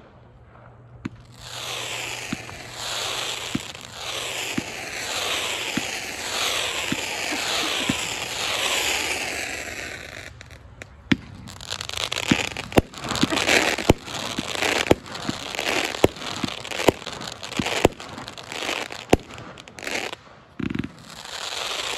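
'Kiss Me' consumer fireworks cake firing. For about the first ten seconds many overlapping whistles fall in pitch, with launch thumps beneath. Then a steady run of shots and crackling stars follows.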